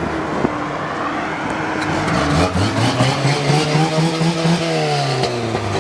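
Truck engine accelerating under load. Its pitch climbs steadily for a couple of seconds, then drops near the end as it shifts or eases off, over a steady road-noise hiss.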